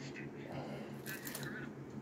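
Faint rustling and light handling noises as a collectible statue is turned over in the hands above tissue paper, over a steady low hum.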